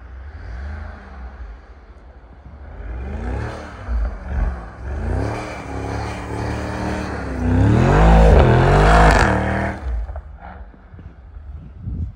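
Mercedes-AMG E 63 S wagon's twin-turbo V8 revving hard through its open performance exhaust valves while the car powerslides in snow, the pitch climbing and falling several times. It is loudest about eight to nine seconds in, then drops away about ten seconds in.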